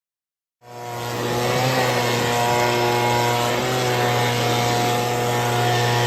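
A machine's motor running steadily at a constant pitch, starting abruptly about half a second in.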